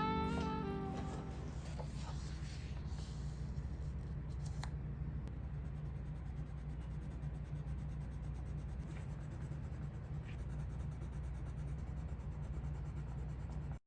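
Colleen coloured pencil rubbing and scratching steadily on black paper, laying down a colour swatch. Background music fades out in the first second.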